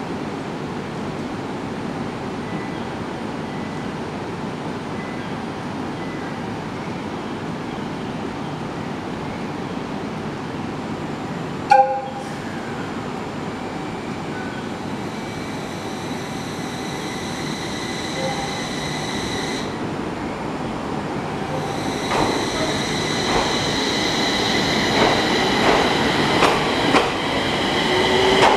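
701 series electric train pulling out of a station. About twelve seconds in there is a short, loud horn toot. A steady high whine follows as the train starts off, and its wheels click over the rail joints, louder toward the end as it passes.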